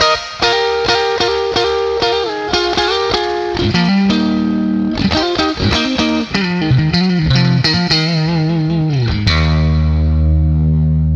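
Electric guitar played through a pedal rig: picked chords and notes in a quick, even rhythm, then from about nine seconds in a chord left to ring out steadily.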